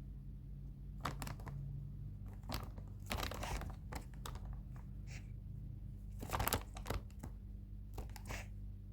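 Irregular crinkling and tearing rustles of a cockatiel rummaging in its makeshift nest, in short scattered bursts over a low steady hum.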